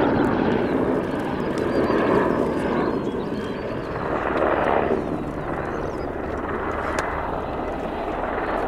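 Helicopter in flight, a steady rush of rotor and engine noise that swells briefly about four to five seconds in.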